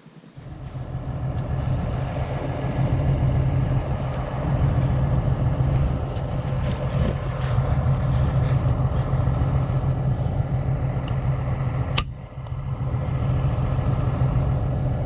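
A motor vehicle's engine running steadily with a strong low hum, briefly cut off about twelve seconds in.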